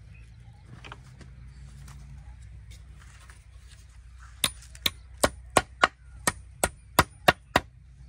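A hammer striking a wooden plank: ten sharp blows at about three a second, starting about halfway through, some with a short metallic ring.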